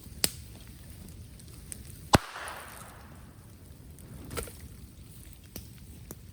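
Bamboo burning in a bonfire, popping with sharp cracks. The loudest crack, about two seconds in, is followed by a short hiss of escaping gas, with smaller crackles between. The fire burns steadily underneath.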